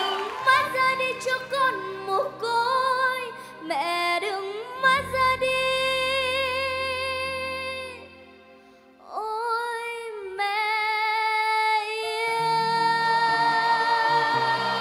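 A young girl singing a slow ballad with vibrato, accompanied by acoustic guitar. The voice drops away briefly about eight seconds in, then comes back and settles into one long held note.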